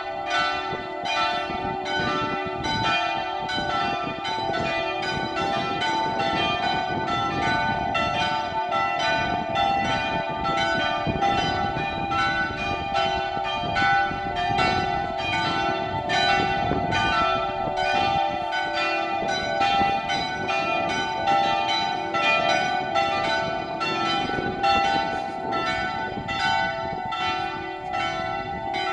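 Full peal of three swinging church bells, tuned d'', e'' and f-sharp'', ringing together in a continuous, overlapping stream of strokes, easing slightly near the end.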